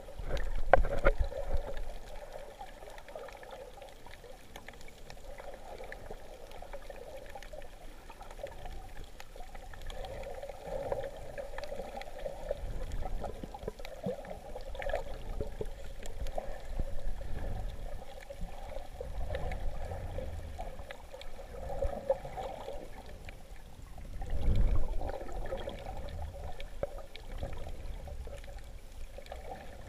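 Muffled underwater water noise, a steady sloshing hiss, with low rumbling surges of moving water, loudest about a second in and again about five seconds before the end.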